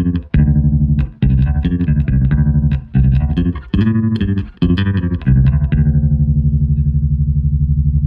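Electric bass played through a Boss TR-2 Tremolo pedal set to maximum rate and depth, so the volume chops up and down very fast. A few short runs of notes give way to one held note about five seconds in, pulsing evenly.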